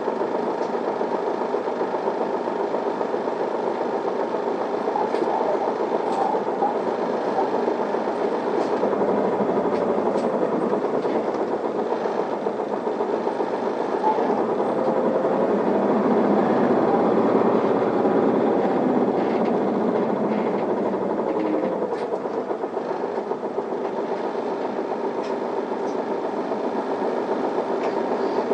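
Isuzu Erga city bus under way, heard from inside the cabin: a steady diesel engine and drivetrain running with road noise, the engine note swelling and easing with speed and loudest a little past the middle.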